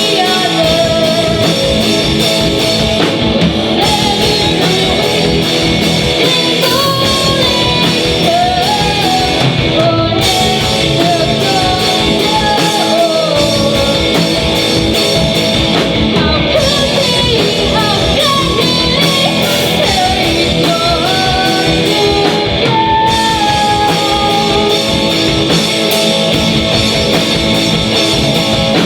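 Rock band playing live, electric guitar and drums with a voice singing a melody over them.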